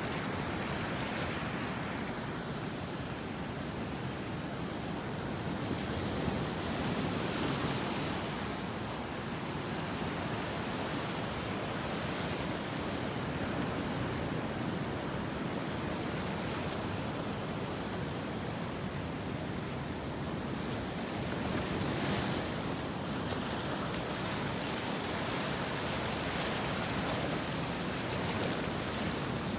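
Sea surf washing steadily against the shore, swelling and easing in waves, with some wind on the microphone.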